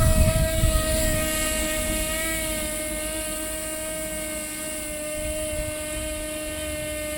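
Small DC motor spinning the plastic propeller of a homemade matchbox helicopter: a steady high whine that sags slightly in pitch, with a low rush of air on the microphone that is loudest at the start.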